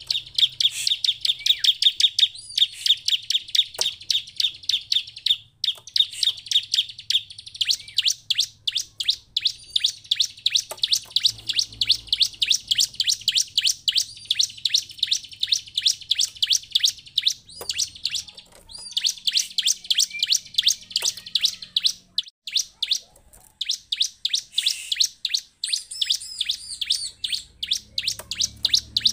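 Bar-winged prinia (ciblek) song: a fast, continuous run of high, sharp chirps, many each second, broken by a few short pauses.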